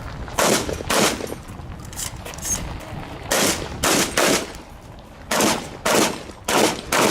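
A string of about eight shotgun shots in practical shooting, each with a short echo. Two come about half a second apart, then after a pause of about two seconds the rest follow roughly half a second apart.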